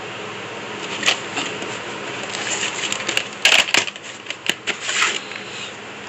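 Sharp plastic clicks and clatter of a VHS cassette being handled and put into its plastic clamshell case, with the case closed near the end; the loudest clatter comes about halfway through. A steady hiss runs underneath.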